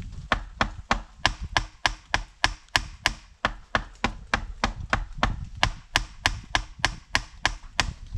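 Steady hammering on a wooden plank: a long run of sharp, evenly spaced blows, about three to four a second.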